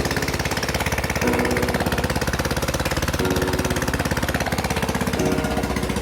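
An engine running hard with a rapid, even pulsing beat. Music chords play underneath and change about every two seconds.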